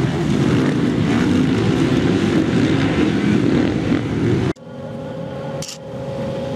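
Motocross dirt bike engine running loud on the track, its pitch rising and falling as it is throttled, cutting off abruptly about four and a half seconds in. After that a quieter steady hum with a brief click.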